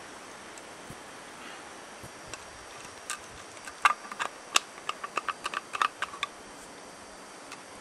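A quick, irregular run of small sharp clicks and ticks, about fifteen in three seconds, over a faint steady hiss.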